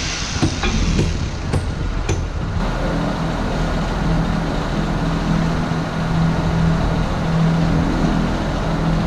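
Several sharp knocks in the first two seconds as the new rubber stall mats are fastened down, over a steady engine-like drone that carries on after the knocks stop.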